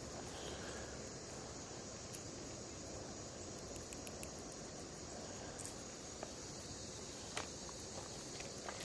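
Steady high-pitched chirring of insects, with a few faint clicks.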